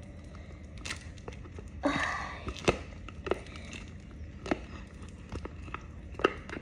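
Sticky Play-Doh Super Cloud slime being worked in the hands: scattered soft clicks and sticky pops as it pulls off the fingers, with a short louder rustle about two seconds in.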